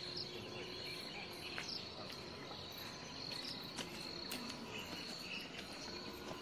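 Insects droning steadily with a thin, high-pitched buzz, with a few faint scattered clicks.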